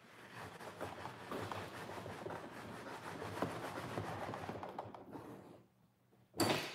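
Kinetic sand being scraped and stirred in a plastic tub with a small hand tool: a steady gritty rustle for about five seconds, then a short pause and a single sharp knock near the end.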